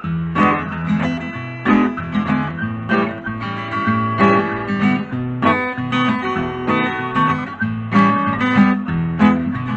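Music: a blues-boogie guitar intro, strummed and picked acoustic guitar in a steady rhythm.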